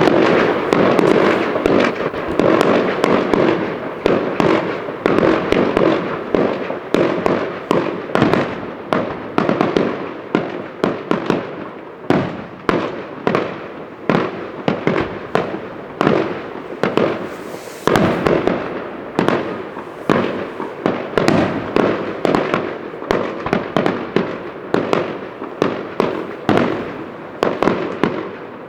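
A fireworks display firing a continuous barrage of bangs, one to two a second, with crackling between them. It starts suddenly.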